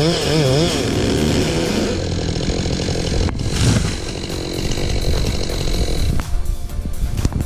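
Chainsaw running and cutting, its engine pitch wavering up and down at first, then settling into a steady rough run. Background music with a beat comes through toward the end.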